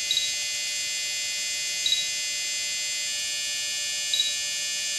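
Futaba T8FG radio transmitter giving three short high beeps about two seconds apart as its knob is turned; the beep signals that the knob is at its neutral position. A steady high-pitched electrical buzz runs underneath.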